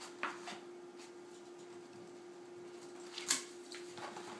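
Light handling sounds of a canvas print and wooden stretcher frame on a table while the frame's corners are marked in pencil: a few brief taps and rustles, the sharpest about three seconds in, over a steady low hum.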